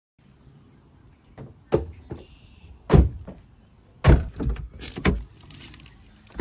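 A cargo van's rear doors being opened and handled: a series of sharp knocks and clunks, the loudest about three and four seconds in.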